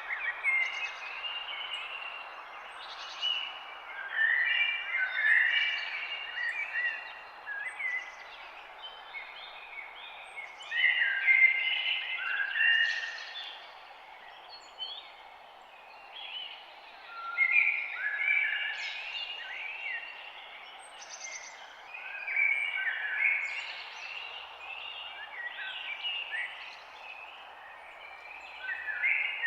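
Songbirds singing in short warbling phrases that come in bouts every few seconds, over a steady background hiss.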